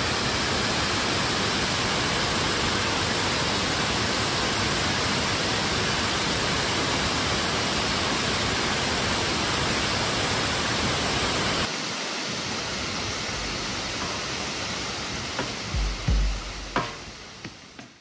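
Fukuroda Falls, a wide tiered waterfall, giving a loud, steady rush of falling water. Near the end the rush fades out as music with deep beats comes in.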